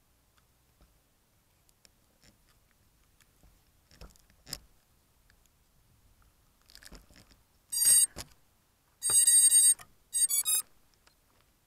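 Electronic beeps in the second half: a short beep, a longer beep, then a quick run of three shorter beeps at shifting pitch, after a few faint clicks.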